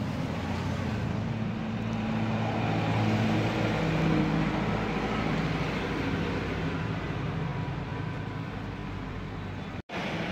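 Steady low hum of an engine running nearby, even throughout, cutting out briefly near the end.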